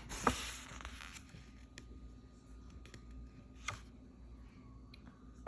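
Quiet handling noise: a brief rustle in the first second, then a few faint, scattered clicks and taps.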